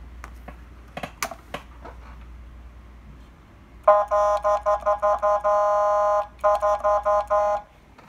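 Powercall BAC-3 100-watt electronic air horn sounding through a siren speaker, its momentary button worked by hand. The steady horn tone comes in about four seconds in as a quick series of short blasts, one longer hold, a brief break, then more short blasts. A few faint clicks come before it.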